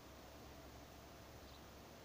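Near silence: a faint steady hiss with a low hum underneath.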